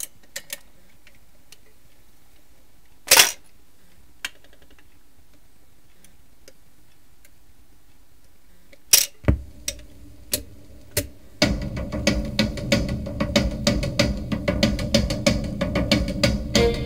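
Garrard autochanger in a 1968 Hacker GP42 Gondolier valve record player running its start cycle: clicks as the lever is pushed, a loud thump about three seconds in as the record drops onto the platter, then a few thumps around nine seconds as the pickup arm sets down, with lead-in groove rumble and crackle. The record's music starts about eleven and a half seconds in, heard through the player's own speaker.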